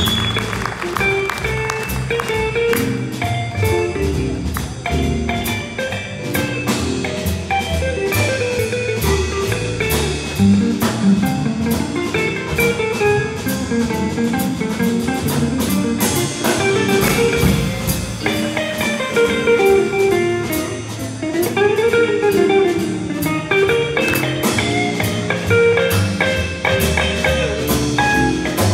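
Live big band jazz led by an electric guitar over upright bass and a drum kit, with the drums keeping an even beat on the cymbals.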